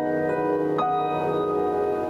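Slow instrumental background music of held chords, with a new chord struck just under a second in.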